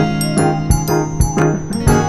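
Background music: an upbeat instrumental track with keyboard or piano, a melody line over it, and a steady beat.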